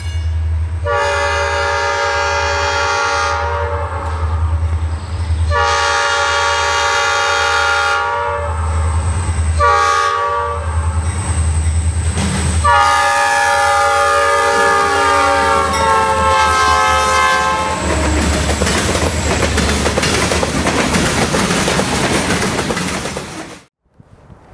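Locomotive air horn sounding two long blasts, a short one and a final long one (the grade-crossing signal) over a steady low engine rumble. A few seconds of rattling wheel-on-rail noise follow, cutting off sharply near the end.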